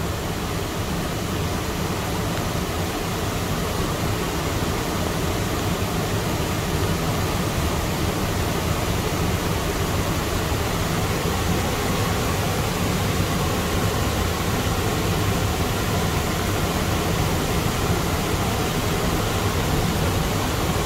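Muddy floodwater of a river in flash flood rushing and pouring over a curved weir: a steady, loud rush of water that grows slightly louder over the first several seconds.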